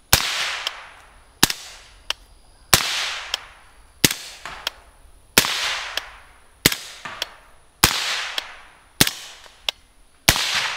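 Daniel Defense DDM4 ISR integrally suppressed .300 Blackout AR-15 firing nine evenly paced semi-auto shots, about one every 1.3 seconds. The magazine alternates supersonic and subsonic rounds, so only every other shot carries the sonic crack.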